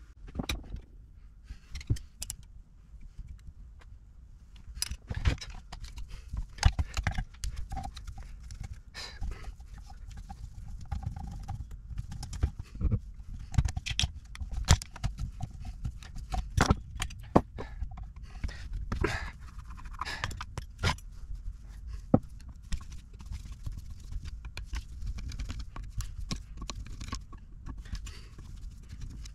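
Screwdriver working the screws out of a Holley 2300 two-barrel carburettor and the parts being handled on the bench: scattered metal clicks, knocks and scrapes, irregular throughout.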